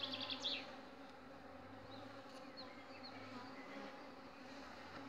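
Honeybees buzzing steadily over an open hive, a low even hum, with a short louder noise just after the start.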